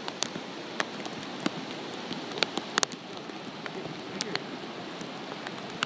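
Steady rain, an even hiss dotted with frequent sharp taps of drops landing close by.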